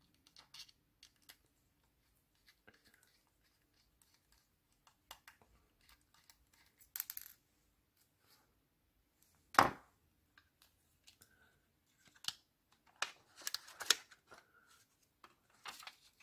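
Small clicks, taps and scrapes of handling a laptop drive's metal tray and its tiny screws, with one louder knock about ten seconds in and a quick run of clicks near the end.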